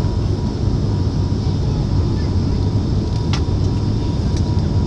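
Steady drone of an airliner's engines heard inside the passenger cabin in flight, a deep, even rumble with a thin steady whine above it and a faint click about three and a half seconds in.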